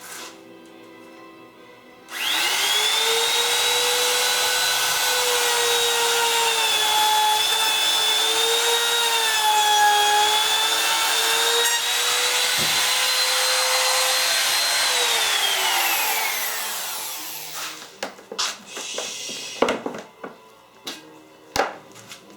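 An electric power tool starts abruptly and runs with a steady high whine for about thirteen seconds, then winds down with falling pitch. A few knocks and clicks follow as it is handled.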